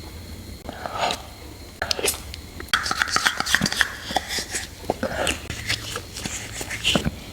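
Eating váng sữa, a soft milk-cream dessert: a dense run of quick wet mouth clicks and smacks, starting about a second in.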